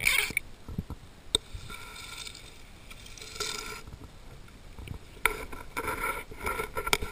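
Muffled underwater noise picked up by a diving-mask camera as the diver swims: water swishing against the mask housing, with a few sharp knocks and clicks.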